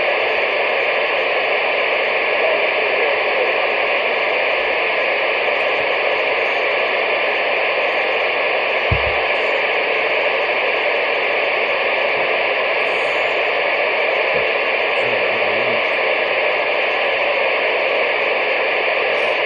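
Steady static hiss from a CB radio receiver, with no one transmitting on the channel. A single short low thump comes about nine seconds in.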